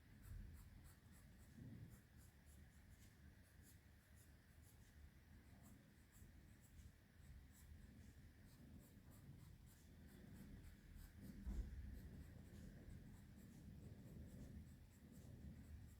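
Faint scratching of drawing strokes on paper.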